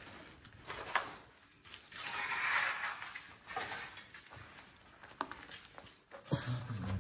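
Footsteps scuffing and crunching over loose concrete rubble and grit, with a few sharp knocks of feet or debris striking concrete.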